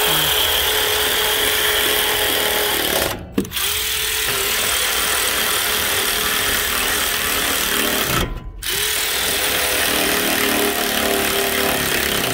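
Handheld power tool running in three long runs, stopping briefly twice, about three and eight seconds in.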